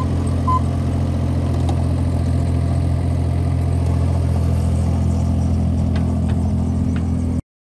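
Bobcat E32 compact excavator's diesel engine running steadily as the machine travels, with one short travel-alarm beep about half a second in; the sound cuts off near the end.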